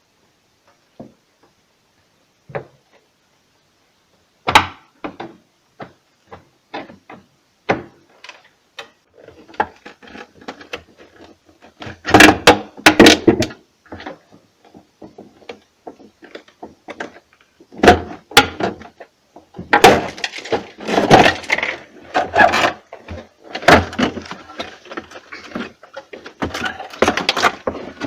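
A flat screwdriver prying off a refrigerator's plastic interior panel. Scattered clicks and knocks come first, then from about halfway on there are bursts of cracking and scraping as the panel is worked loose.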